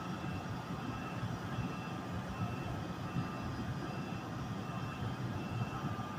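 NJ Transit ALP-46A electric locomotive running as its train starts to pull slowly out of the station: a steady low rumble with a steady high whine. A faint short beep repeats about every three quarters of a second.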